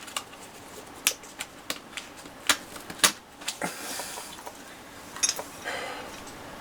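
A run of sharp, irregular clicks and light knocks from a flight helmet and oxygen mask being handled and adjusted on the head, with a short hiss and a rustle near the end.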